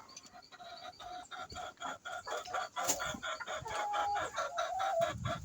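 A flock of laying hens clucking, many short calls in quick succession, with one longer drawn-out call about four seconds in.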